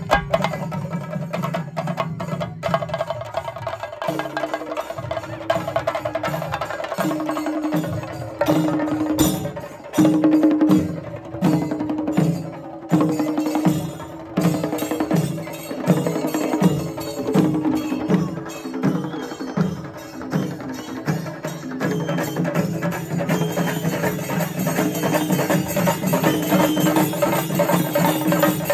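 Chenda drums played with sticks in a Kerala festival procession: fast, dense drumming that swells in regular waves about once a second through the middle stretch.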